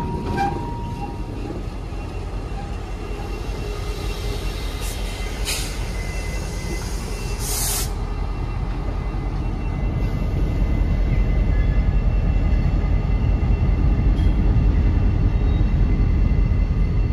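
Norfolk Southern EMD SD40E No. 6311's diesel engine working hard as the locomotive shoves a string of gondolas: a steady low rumble that grows louder about ten seconds in, with a brief hiss near seven seconds. To the railfan the engine does not sound healthy.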